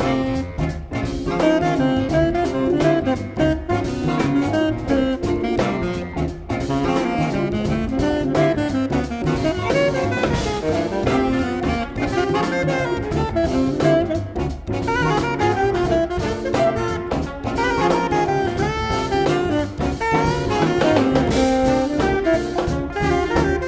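Big band jazz instrumental: saxophones and brass playing over a drum kit.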